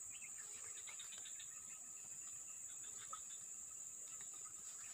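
Faint ambience of a steady, high-pitched insect drone, with a few faint short chirps in the first second.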